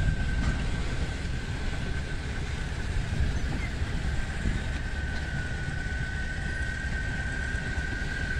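Loaded freight wagons rolling past on steel rails: a steady, dense rumble of wheels and car bodies, with a thin high-pitched squeal held through it.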